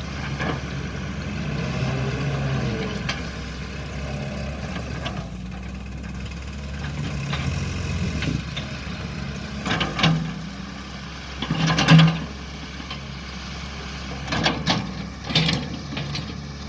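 Diesel engine of a JCB 3DX backhoe loader running steadily under work, with several sharp knocks, the loudest about twelve seconds in and a cluster of them near the end.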